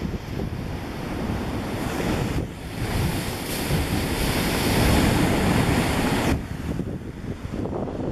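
Ocean surf crashing and churning in a narrow rocky inlet. A wave surges in about two and a half seconds in, bursts in spray, and is loudest around five seconds before falling away about six seconds in. Wind buffets the microphone throughout.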